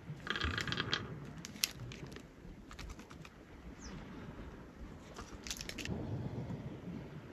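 Nuts clicking as they are dropped onto a wooden serving board, in a few quick clusters of small, sharp clicks, with a brief rustle near the start. A low rumble of wind and sea lies underneath.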